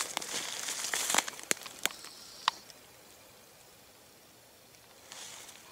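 Footsteps and movement through dry fallen leaves and twigs on the forest floor: rustling with several sharp clicks of snapping twigs, dying away about halfway through.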